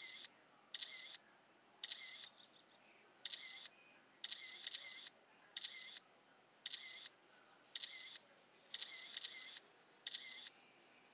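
Camera shutter going off again and again, about once a second, a string of photos being taken. Each shot is a short, sharp, high-pitched burst with silence between.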